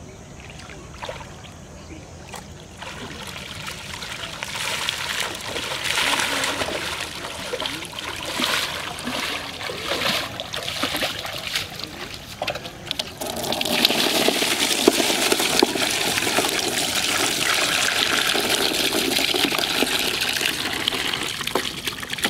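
Water splashing and running off a PVC pipe fish trap as it is lifted out of a pond, then, from about halfway through, a steady stream pouring out of the pipe's end into a plastic tub.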